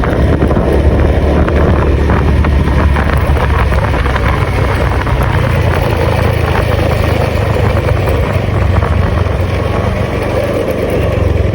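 A vehicle engine running steadily while travelling along a road, with wind rumbling on the microphone.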